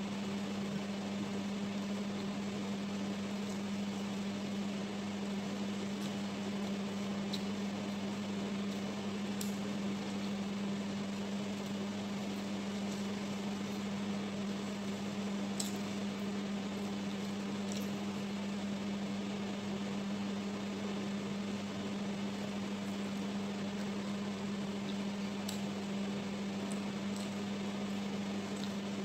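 Steady electrical hum from a running appliance, one constant low tone that never changes, with a few faint short clicks scattered through it.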